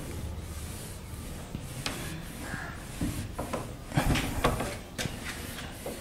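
Whiteboard being wiped clean with an eraser: repeated rubbing strokes across the board, loudest about four seconds in.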